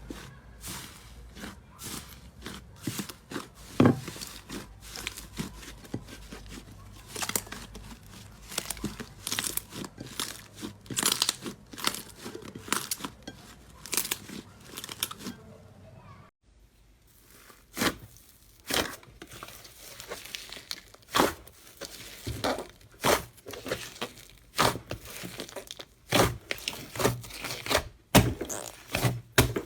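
Slime being pressed, stretched and squeezed by hand, crackling and popping in a quick, irregular run of sharp clicks. About 16 seconds in the sound cuts out briefly, then comes back as sparser, louder pops.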